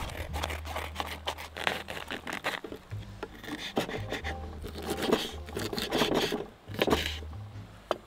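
A knife cutting bracken fern stems on a wooden cutting board: short, irregular scrapes and knocks in quick clusters, after a plastic bag is handled and cut open at the start.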